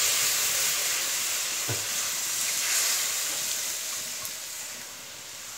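Milk being poured into a hot, empty iron kadai, sizzling as it hits the metal. The loud hiss starts suddenly and slowly dies down as more milk goes in.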